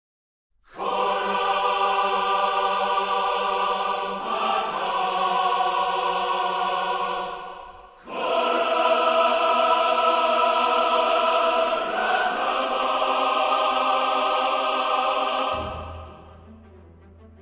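Music of long, held choir-like chords that change every few seconds. It breaks off briefly about eight seconds in and fades out near the end.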